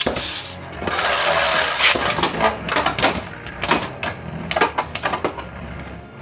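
Beyblade spinning tops, one of them 3D-printed, clashing in a stadium: a hissing spin, then a rapid run of hard plastic clacks and rattles from about two seconds in, thinning out near the end.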